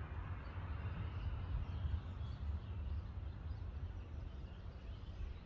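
Outdoor background: a steady low rumble with faint bird calls.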